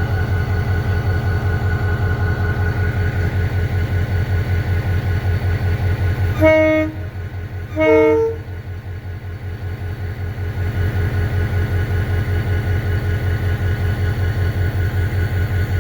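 EMD GT26 diesel locomotive idling with a steady pulsing rumble. Its horn sounds two short blasts about a second and a half apart, the second changing pitch partway. The engine rumble eases for a few seconds after the horn, then comes back up.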